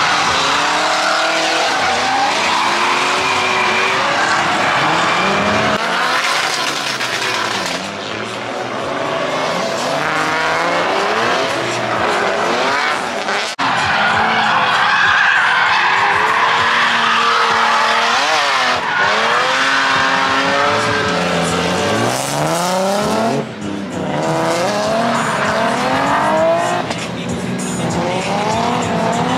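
Drift car engines revving hard and falling back again and again, with tyres squealing and skidding as the cars slide.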